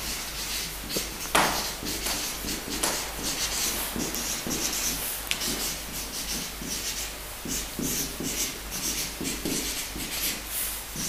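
Handling noise: irregular rustling and rubbing throughout, with a sharp knock about a second and a half in.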